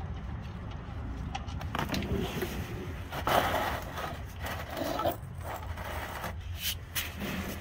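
A socket wrench being fitted onto an oil pan drain plug: irregular scraping, clicking and knocking of metal tools, over a steady low hum.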